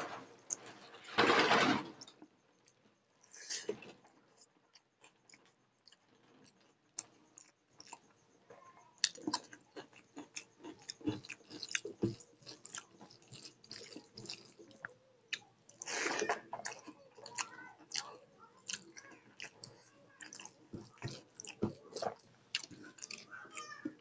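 A person chewing mouthfuls of rice and egg curry eaten by hand, with many small wet clicks throughout and the rice being mixed by hand in a steel plate. There are two louder, longer stretches of mouth noise, about a second in and again about sixteen seconds in.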